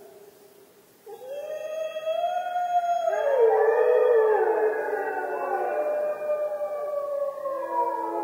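Wolves howling in chorus. A single howl rises about a second in, and from about three seconds several howls overlap at different pitches, gliding up and down.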